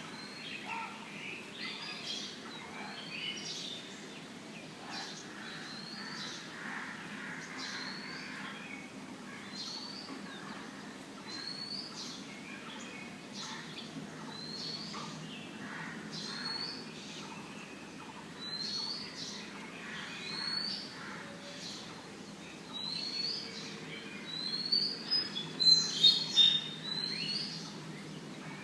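Several birds chirping, one repeating a short upward-sweeping note about every second or two among other chirps, with louder, closer chirps near the end. Faint background hiss from a low-quality recording.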